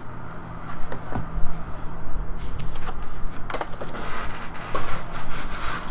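Trading-card boxes and card packaging being handled: scattered clicks and taps, with stretches of rustling about halfway through and near the end.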